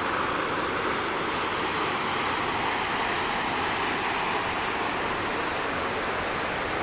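Rushing white water in a gorge river below the waterfalls, a steady, even rush.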